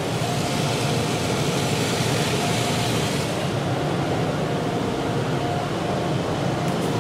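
Automatic car wash heard from inside the car's cabin: water and coloured foam spraying onto the windshield and body in a steady rushing hiss, with a faint steady hum underneath. The hiss eases a little after about three seconds.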